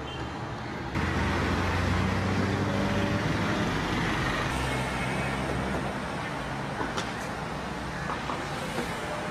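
Road traffic and vehicle engines running steadily, with an abrupt change in the sound about a second in where the footage is cut.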